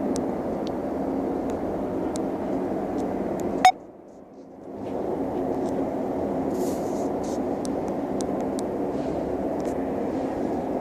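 A steady low rumbling drone with a faint hum in it, the kind of unexplained noise heard as a 'strange sound in the sky'. A little over a third of the way in, a sharp click cuts it off for about a second, and then it fades back in.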